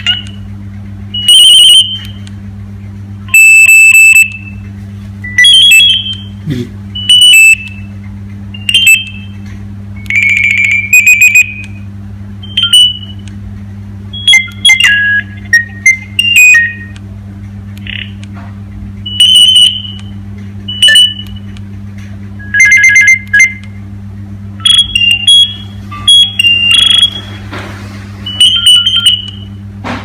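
Nokia 3530 mobile phone giving a string of short electronic beeps and clipped ringtone snippets, each cut off within a second or so as the ringtone menu is scrolled and keys are pressed, over a steady low hum.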